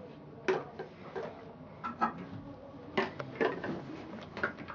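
Handling noise: a string of irregular light clicks and clinks, with a few sharper knocks about half a second, two seconds and three seconds in.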